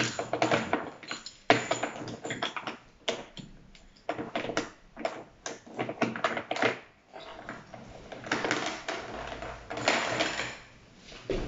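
Plastic baby toy rings and rattle clattering, with quick irregular clicks and knocks as they are shaken and bumped on a plastic high-chair tray.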